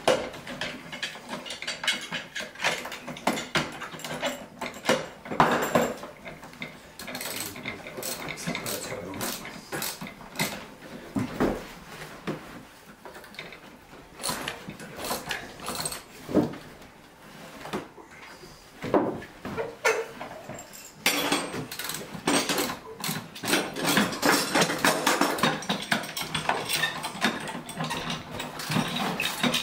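Clamps and metal fittings clicking, clanking and knocking irregularly as a steamed ash chair leg is forced around a bending form and clamped down. The clicking gets denser about two thirds of the way through.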